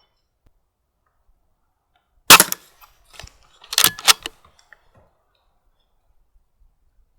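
A single shot from a Weihrauch HW100 .22 PCP air rifle, a sharp crack about two seconds in, followed about a second and a half later by two quick sharp clicks and a few fainter ones.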